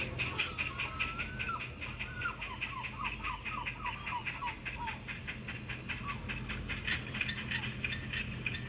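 Birds chirping: a run of short, quickly repeated falling chirps in the middle, over a fast, even pulsing and a steady low hum.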